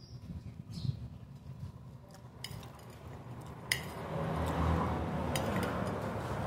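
Metal fork and spoon clinking and scraping on a ceramic dinner plate while food is picked up, a few sharp clinks spaced out, over background noise that gets louder about four seconds in.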